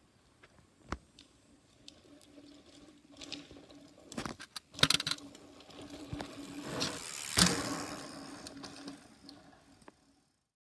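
Mountain bike riding by on a dirt track: tyres crunching over loose dirt with rattling knocks, two louder clatters about five and seven and a half seconds in, over a faint steady hum. The sound cuts out near the end.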